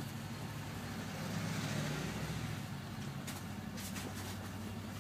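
School bus engine running with a steady low hum, heard from inside the bus. There is a brief swell of noise around two seconds in and a couple of faint clicks a little after three seconds.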